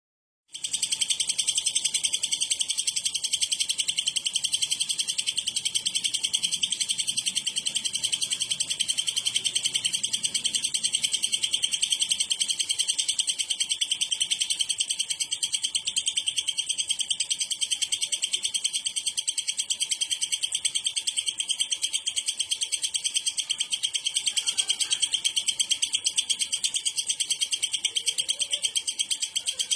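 Dense chorus of many cucak ijo (green leafbirds) chirping and chattering at once, the massed 'ombyokan' bird sound. It starts abruptly about half a second in and runs on as a steady, fast, high-pitched chatter without a break.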